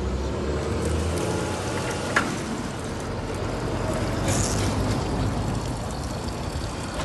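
Steady outdoor background noise with a motor vehicle's low rumble, strongest in the first second, and a brief sharp sound about two seconds in.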